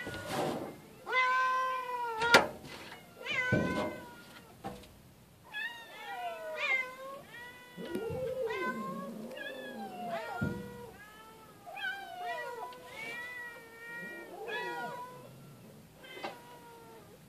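A calico cat and orange tabby kittens meowing over and over, begging for food, with several calls often overlapping. A single sharp click about two seconds in is the loudest sound.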